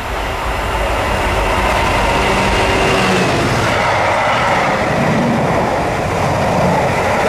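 Class 66 diesel-electric locomotive passing close by at speed with a loaded container train, its EMD two-stroke V12 engine droning for the first few seconds. After that, the loud, steady rolling noise of the container flat wagons' wheels on the rails.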